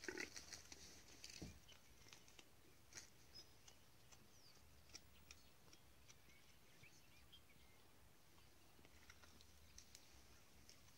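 Near silence: faint outdoor ambience with scattered soft clicks, a few of them in a cluster at the start.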